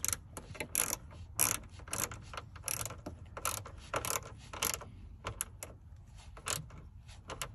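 Hand ratchet clicking in short strokes, about two bursts a second, as it tightens down the screws holding a rear speaker in place.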